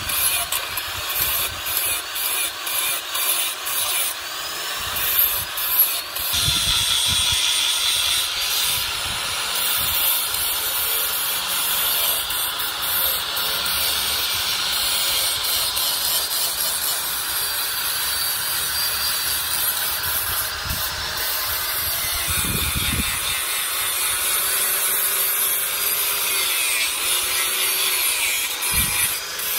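Handheld angle grinder with an abrasive disc grinding a forged steel cleaver blade, a continuous high grinding hiss over the motor's whine. It comes in short, broken passes for the first few seconds, then runs steadily.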